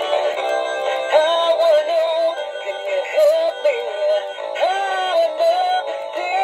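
A singing animatronic fish plaque plays a song through its small built-in speaker: a sung melody that glides up and down in pitch over a keyboard backing. The sound is thin, with no bass.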